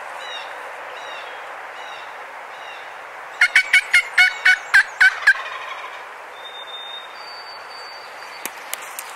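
A run of about nine turkey yelps, evenly spaced over about two seconds, starting a few seconds in. Faint songbird chirps come before them, and two thin bird whistles after.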